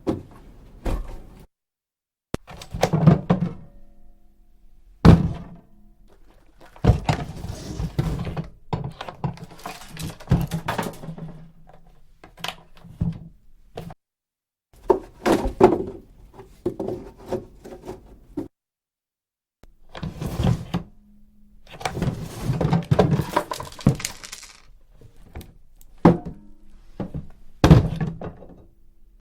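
Wooden coffin being handled: a string of heavy wooden thuds and knocks as the lid is shut and the box is moved, with scraping and a few drawn-out creaks in between. The sounds come in separate takes, with brief silences between them.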